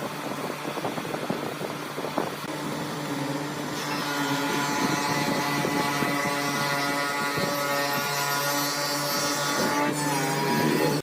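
A power tool's motor running steadily. It gets louder, with a stronger pitched whine, from about four seconds in, and changes pitch briefly near the end.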